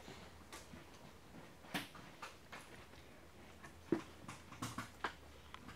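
Faint, irregular clicks and light knocks of wiring and plastic corrugated split loom being handled and pushed up behind a vehicle's rear bumper, the loudest knock about four seconds in, over a low steady hum.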